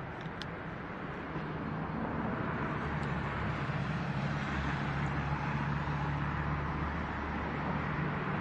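Diesel locomotives of a Norfolk Southern freight train approaching, their engines a low steady drone that grows a little louder from about a second and a half in. A hiss of road traffic runs underneath.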